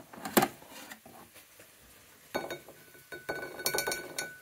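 A metal wire oven rack knocks once sharply as it is drawn out of the air fryer oven. From about halfway, a quickening run of ringing clinks follows as the rack knocks against a ceramic plate while the wedges are tipped off.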